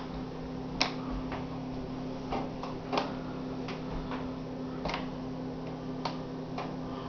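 Water dripping from a leaking kitchen ceiling: irregular sharp ticks of falling drops, about one a second, over a steady low hum.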